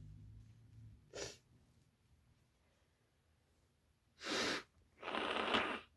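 A woman with a cold sneezing and breathing hard: a short sharp burst about a second in, then two louder bursts close together near the end.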